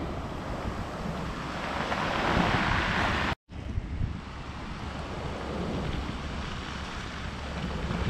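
Sea surf breaking and washing up a pebble beach, with wind buffeting the microphone. The wash swells once about two seconds in, and the sound cuts out for a moment a little past three seconds.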